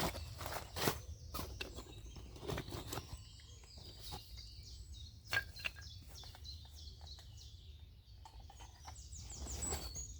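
Small songbirds chirping and calling, busiest near the end, over irregular close knocks and rustles and a low steady rumble.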